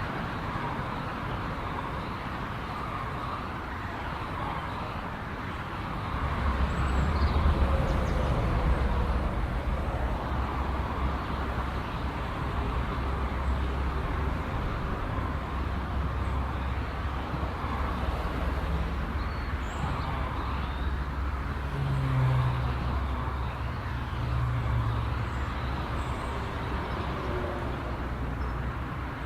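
Steady motorway traffic heard from an overpass: a continuous hiss of tyres from passing cars, with a deep low rumble of heavier vehicles coming in about six seconds in and staying, swelling briefly a few times as vehicles pass beneath.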